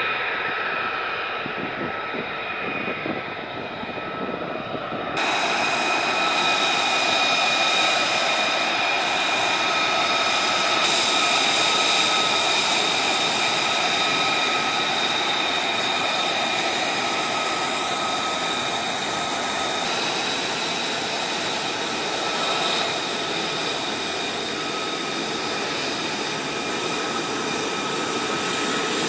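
Lockheed Martin F-35A Lightning II's single Pratt & Whitney F135 turbofan running at low power on the ground during taxi: a steady high-pitched whine made of several held tones over a rushing noise. It gets louder about five seconds in and shifts abruptly a couple more times.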